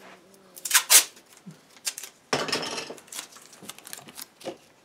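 Handling noise: several sharp clicks and knocks, loudest about a second in, and a short rustle a little past the middle.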